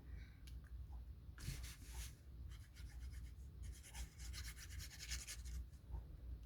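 Faint rubbing of paper on paper as a die-cut cardstock piece is pressed and smoothed down by hand: a short stretch about one and a half seconds in, then a longer one of about three seconds.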